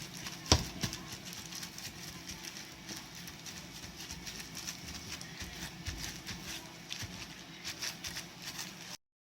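Irregular light knocks and clicks over a steady low hiss, with one sharp knock about half a second in and a cluster of clicks near the end.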